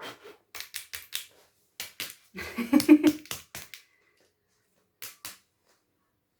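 Small plastic clicks and handling knocks from a cordless vacuum cleaner being worked apart by hand, with its battery connector being pushed in; a louder cluster of knocks near the three-second mark, then one last pair of clicks.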